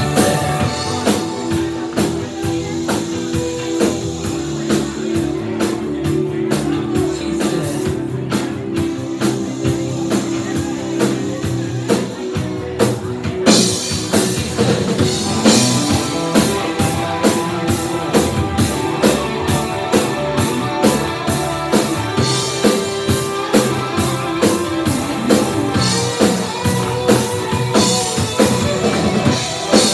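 Live rock band playing a song on drum kit, electric bass and electric guitar, with a steady beat. The sound grows fuller and brighter about halfway through.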